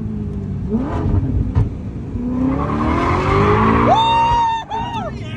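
Maserati Quattroporte V8 revving hard and climbing in pitch under acceleration, with a rough skidding, tyre-squeal noise swelling to the loudest point about three seconds in. Near the end a high, held pitched sound with swooping glides cuts in.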